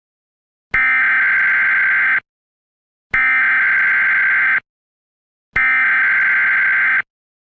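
Three identical electronic emergency alert tones, each a steady buzzing tone about a second and a half long, separated by about a second of silence, closing the alert broadcast.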